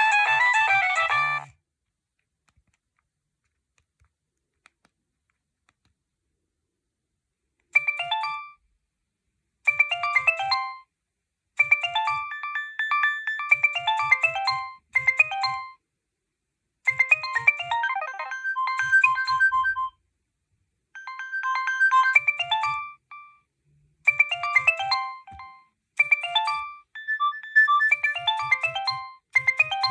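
Nokia 6610 mobile phone playing its ringtones: one tune ends about a second and a half in, then after about six seconds of silence another starts, a melody of short electronic notes over a pulsing bass, played in phrases with short pauses between them.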